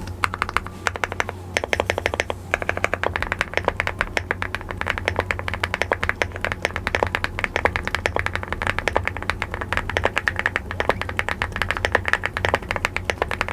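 Typing on a Dino65 custom mechanical keyboard: a fast, continuous run of keystroke clacks.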